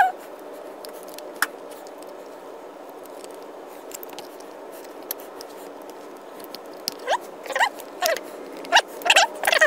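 Light clicks of small carburetor parts being handled, then, near the end, a run of short squeaks as the carburetor's top cover is worked down onto its gasket.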